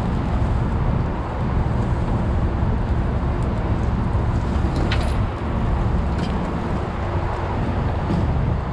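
Heavy rotator tow truck's diesel engine running steadily with a low rumble, with a couple of light clicks about five and six seconds in.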